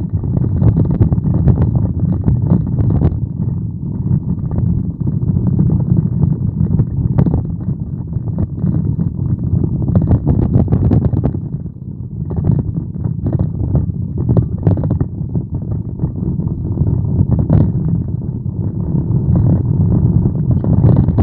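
Low, steady rumble of a car driving, heard from inside the cabin, with frequent light knocks and rattles over it.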